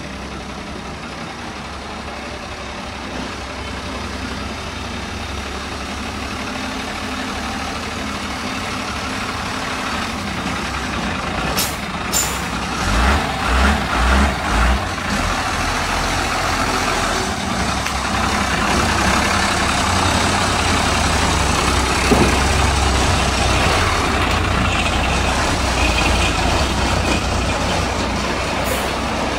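Diesel engine of an old stripped-down truck running as it drives slowly, growing louder as it nears; a little before halfway it revs in a handful of quick pulses, about two a second. Just before the revs come a couple of short hisses, like air-brake releases.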